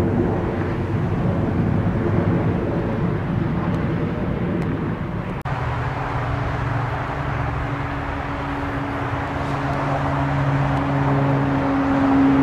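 Jet aircraft engines running with a steady rumble. About five seconds in the sound changes abruptly to a steady hum with a low drone under the noise.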